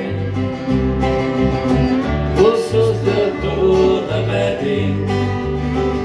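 Live acoustic blues band playing: resonator guitar and acoustic guitar strumming over a bass guitar that steps from note to note.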